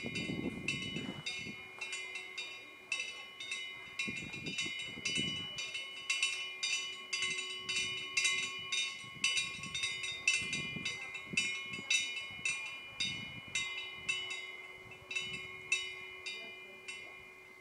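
Korean temple wind bell (pungyeong) with a fish-shaped wind vane: the wind swings the clapper against the bell in an irregular run of clinks, about two or three a second, each ringing on in high steady tones, thinning out near the end. A low rumble comes and goes underneath.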